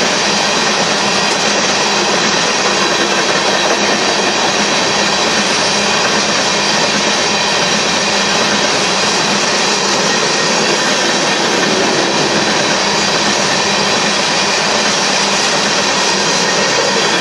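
CSX freight train of covered hopper cars rolling past at speed: a steady, loud rolling rumble and rattle of steel wheels on rail, with thin steady high whining tones from the wheels over it.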